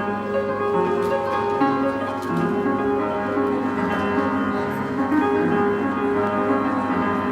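Piano played live as background accompaniment: a steady run of held notes and chords.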